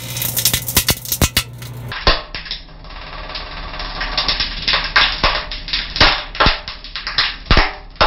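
Microwave oven running on high with a CD inside arcing: irregular sharp snaps and crackles of sparks across the disc's thin metal layer, over the oven's steady low hum.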